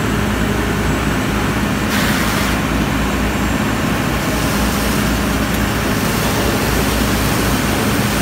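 Fire apparatus engine running steadily, a low rumble with a steady hum, while it pumps water to the aerial ladder's stream. A brief hiss comes about two seconds in.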